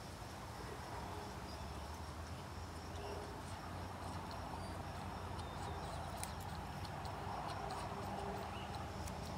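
Pomeranian panting quietly over a steady outdoor background hum, with a few faint clicks.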